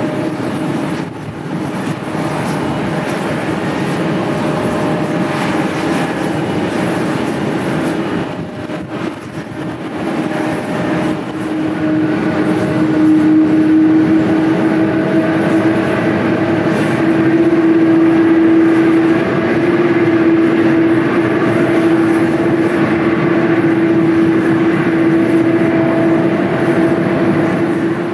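Jet airliner engines running steadily over a rushing rumble, with a steady hum that grows louder about halfway through.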